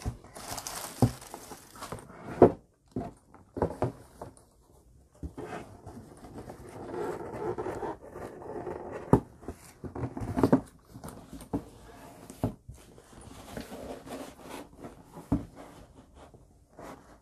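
Tissue paper and a cloth dust bag rustling as leather knee-high boots are handled in and out of a cardboard shoe box, with scattered sharp knocks of the boots against the box.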